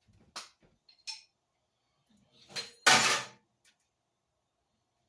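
Kitchenware being handled: a couple of light clicks, then a louder clatter about three seconds in.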